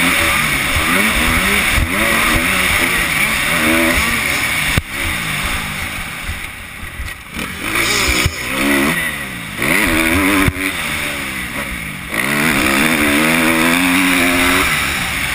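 2011 Kawasaki KX250F's single-cylinder four-stroke engine ridden hard, its revs repeatedly climbing and dropping through gear changes. It goes quieter off the throttle for a stretch in the middle, then picks up again near the end, with a few sharp knocks along the way.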